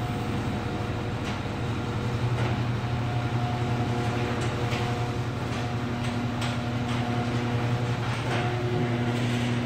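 Ceiling-mounted rail-drive garage door opener running as it lowers a sectional overhead door: a steady mechanical hum with scattered clicks and rattles.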